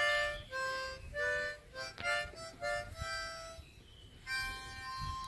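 Music: a slow tune of held notes, often several sounding together, with a short pause about three and a half seconds in before one long note.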